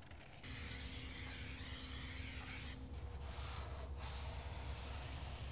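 Kraft paper rubbing and rustling against a foam board as a cut-out paper template is handled and smoothed flat: a steady hiss that starts suddenly about half a second in and eases near three seconds, then picks up again, over a low hum.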